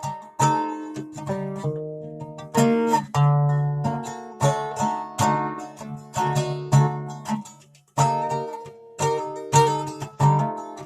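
A plucked string instrument played solo, with notes and chords struck one after another and left to ring and die away. There is a short break about three quarters of the way through before the playing resumes.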